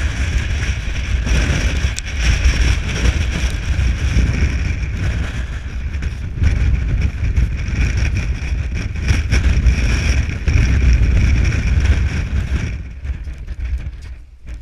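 Strong wind buffeting the microphone: a loud, steady low rumble with a hiss over it, easing off near the end.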